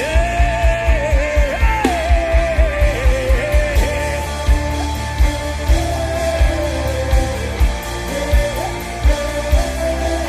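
Worship music: quick low bass pulses, about three a second, under one long gliding melodic line, sung or played. The pulses drop out about four seconds in and return near the end.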